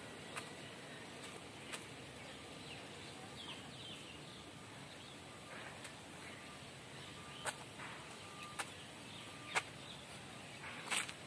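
Outdoor ambience with birds chirping faintly and a handful of sharp clicks scattered through it, the loudest near the end.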